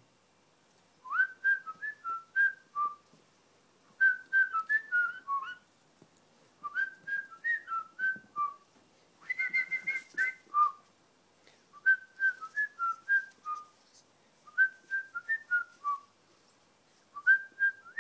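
A person whistling the same short tune of clear stepping notes over and over, seven times with short pauses between.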